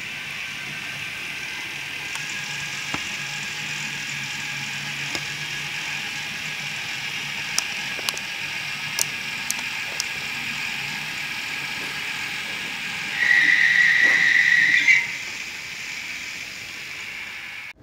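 Märklin Köf II model diesel shunter playing its built-in sound while it runs on the track: a thin, steady diesel-engine sound from the small loudspeaker, an engine sound that does not match the real Köf. A few sharp clicks come in the middle, and near the end a loud high-pitched tone lasts about two seconds and stops abruptly.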